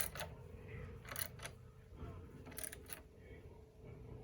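Faint scattered clicks from a hand ratchet and bolts as headlight mounting bolts are snugged down by hand: a few separate clicks, at the start, about a second in and near the middle.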